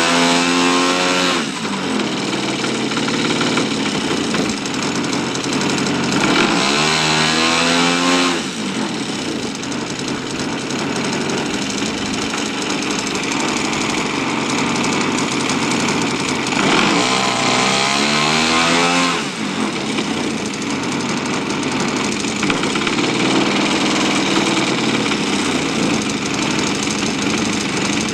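3W-85 two-stroke gasoline engine of a giant-scale RC P-51 Mustang, fitted with a Keleo exhaust, running on a ground test. It drops back from high revs at the start, is run up and throttled back twice more, and gets a smaller blip of throttle near the end.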